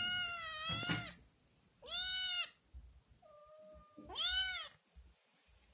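Scottish kitten meowing loudly, begging for food at the sight of yogurt. A long meow ends about a second in, then come two more loud meows, with a softer, lower call between the last two.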